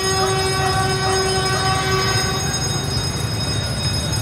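Diesel locomotive horn sounding one long steady blast from the approaching freight train, cutting off about two seconds in, over a low rumble.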